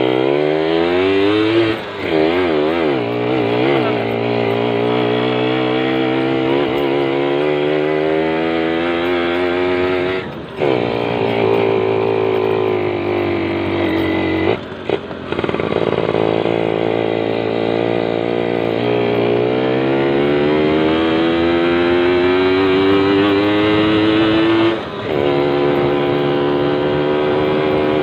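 Yamaha Champ motorcycle engine running under way from the rider's seat. The revs rise steadily in each gear, with short drops at the gear changes about four times.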